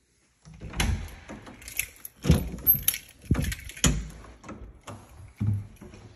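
Footsteps of someone walking through an empty house, irregular knocks about once or twice a second, with rustling handling noise between them.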